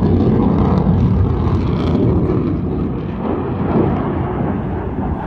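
Fixed-wing aircraft flying overhead: a loud, steady rushing engine noise that eases off slightly in the second half.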